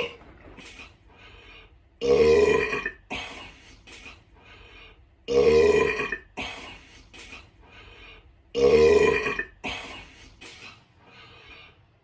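Loud burping: three long, pitched burps, each about a second long and about three seconds apart, each followed by several shorter, fainter sounds.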